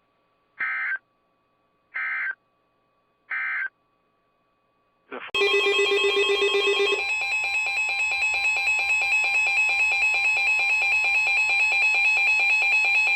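Emergency Alert System signalling: three short data-burst chirps, the end-of-message code closing the previous alert. About five seconds in, a steady EAS attention tone with several pitches sounding together starts and runs for about eight seconds, announcing the next warning.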